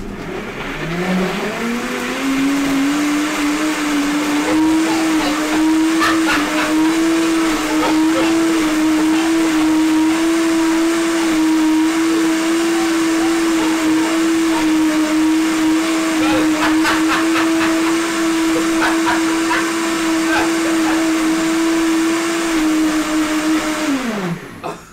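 Electric blender blending a sauce: the motor spins up over the first two seconds or so, runs at a steady pitch for about twenty seconds, then winds down just before the end.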